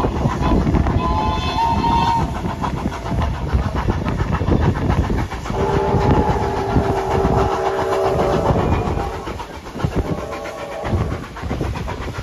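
Ride aboard a train hauled by steam locomotive 3801: a steady rumble with the rhythmic clatter of wheels over rail joints. A steam whistle sounds a chord of several notes briefly about a second in, and again for about three seconds from around halfway.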